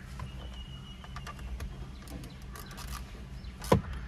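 Scattered light clicks and taps of a hand tool tightening the bolts on either side of a steering wheel, with one sharper knock near the end, over a steady low hum.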